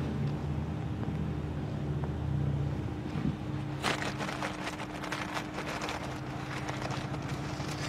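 Low, steady engine rumble with a constant hum from a distant vehicle. Brief crackles come and go from about four seconds in.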